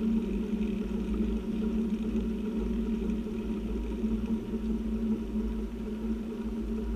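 Steady wind rush and low rumble on the microphone of a cyclist riding along a road, with no break or change.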